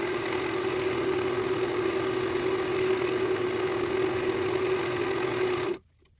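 Woodworking power tool motor running steadily with a strong hum over broad noise; it stops abruptly near the end.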